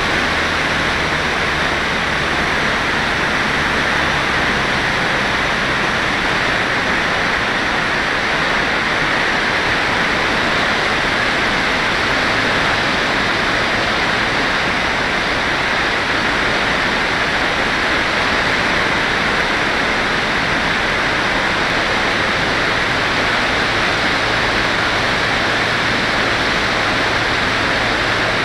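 Steady rush of wind over the onboard camera microphone of an FPV model glider in flight, an even hiss that holds at one level throughout.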